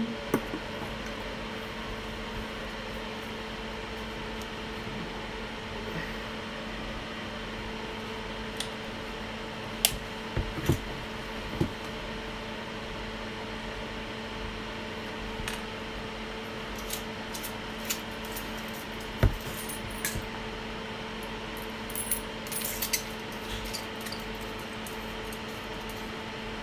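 Steady electrical hum of running bench equipment, with occasional light clicks and taps of small tools being handled, a few around ten seconds in, a sharp one near twenty seconds, and a cluster a little later.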